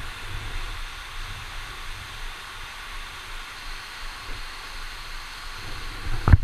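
Waterfall: a steady rush of falling water with a low rumble beneath it. A loud thump comes near the end.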